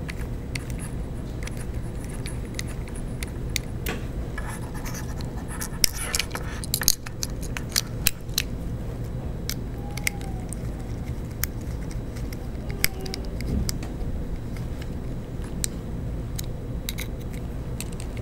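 Small clicks and scratches of fingers handling and fastening small metal bolts, washers and nuts on 3D-printed plastic parts, over a steady low hum.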